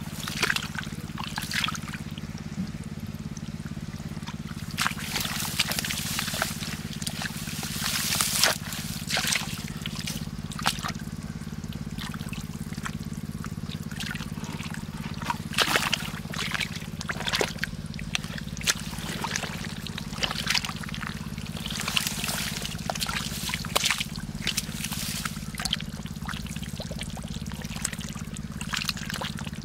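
Ditch water splashing and sloshing in irregular bursts as hands work through it to catch fish, over a steady low hum.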